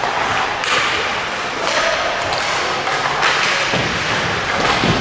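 Ice hockey play: skates scraping and hissing on the ice in short strokes, with a few low thuds and knocks, the loudest near the end.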